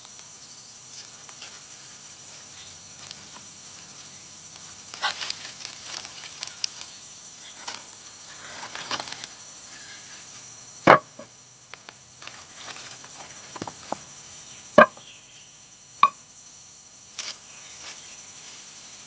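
Irregular light taps and scrapes of work on wood, with a few sharp knocks. Two of the knocks, about four seconds apart in the middle, are much louder than the rest. A steady high insect hum runs underneath.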